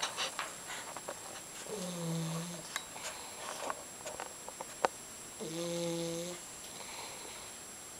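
A sleeping pet snoring: two slow, pitched snores about three and a half seconds apart, each lasting about a second. There are a few small clicks between them, with one sharp click just before five seconds in.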